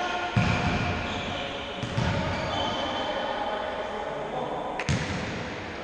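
Futsal ball being kicked and struck on an indoor court: three sharp thuds, about half a second, two seconds and five seconds in, each echoing in a large sports hall.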